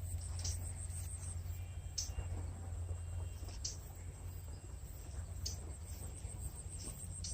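Insects, crickets by the sound of it, trilling steadily in a high pulsing note, with a short high chirp repeating every second and a half or so, over a low steady rumble.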